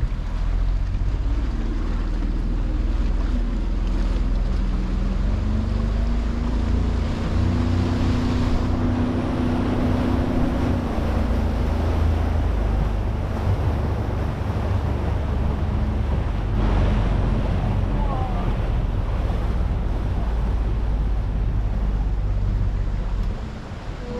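Fishing boat under way: its engine running steadily, with water rushing past the hull and wind buffeting the microphone.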